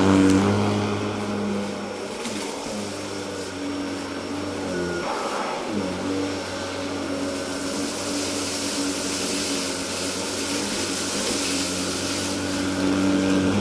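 Electrolux UltraPerformer canister vacuum with a Miele SEB 216-3 powerhead, picking up rice and cat litter from low-pile carpet. The motor hum is steady but dips in pitch briefly about two seconds in and again about five seconds in, and a rushing hiss of air grows louder in the second half.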